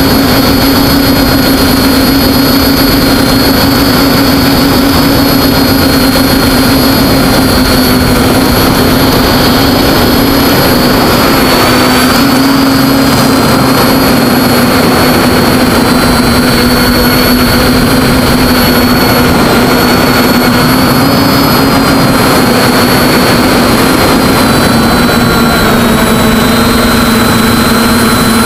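TBS Discovery quadcopter's four NTM brushless motors and propellers running steadily in flight, heard through the camera on the craft: a loud buzzing whine over a rushing of air, its pitch shifting slightly now and then.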